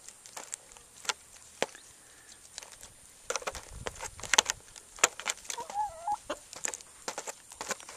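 Backyard hens pecking at cake on a hard tray: many quick, irregular taps of beaks on the tray, with a hen giving a short cluck about two-thirds of the way through.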